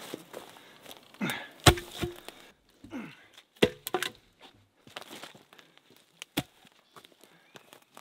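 Footsteps through brush and fallen branches, with several sharp wooden knocks and cracks from logs and sticks, the loudest about two seconds in.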